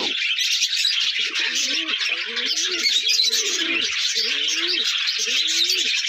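A pigeon cooing in a run of short rising-and-falling coos, starting about a second in, over the continuous high chirping chatter of budgerigars.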